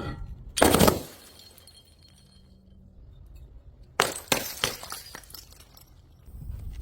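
Glass bottles shattering: one smash about half a second in, then another about four seconds in, followed by a few small clinks of shards landing.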